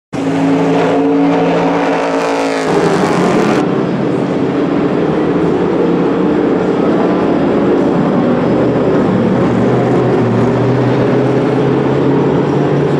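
Toyota Supra GT300 race car's 3.4-litre V8 running steadily at low revs, its note changing abruptly about two and a half seconds in.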